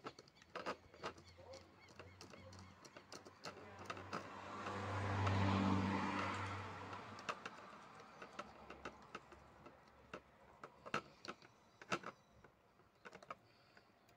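Small clicks and taps of a screwdriver working the screw terminals of an amplifier board, with speaker wire being handled. Around the middle a passing vehicle swells up with a low hum and fades away, the loudest sound here.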